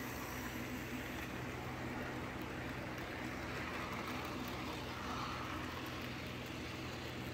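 Model railway train running on the track: a steady electric motor hum over a constant rolling rattle of small wheels on rails.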